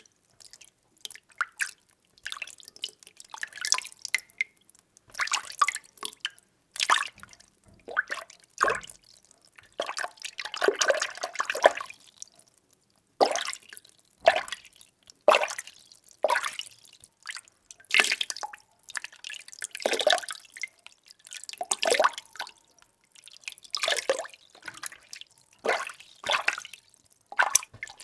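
Water being stirred: short sloshing swishes about once a second, with one longer continuous swirl near the middle.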